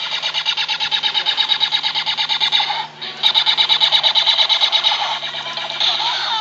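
Laser tag blaster's electronic rapid-fire sound effect from its built-in speaker, a fast string of pulsed beeps in two long bursts with a short break about three seconds in, and a different tone near the end.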